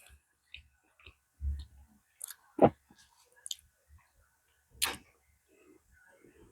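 A few scattered light clicks and taps, with two sharper ones a little over two and a half seconds and nearly five seconds in.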